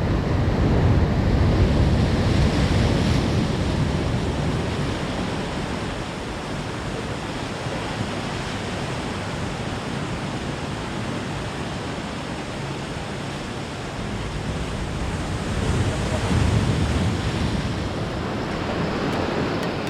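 Sea waves washing, with wind buffeting the microphone; the surge swells louder twice, at the start and again about three-quarters of the way through.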